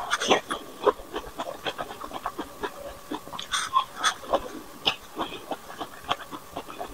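Close-up chewing of a strawberry bitten off a skewer: a steady run of irregular wet clicks and smacks from the mouth.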